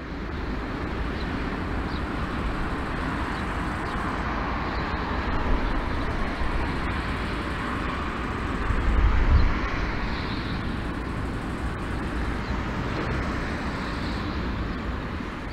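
Steady jet-engine rumble and hiss from a taxiing four-engine Airbus A340-300 and its CFM56 turbofans, swelling briefly about nine seconds in.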